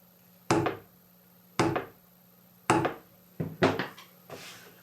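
A mallet strikes a 1.5 mm hole punch through layered leather, each blow a sharp knock with a short ring, about once a second. There are five blows, the last two in quick succession.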